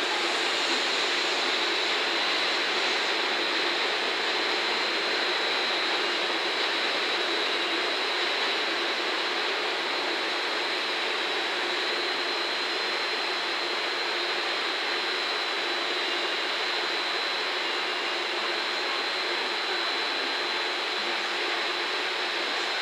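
Steady rushing noise of electric trains running slowly through a station yard, with a thin, steady high whine above it.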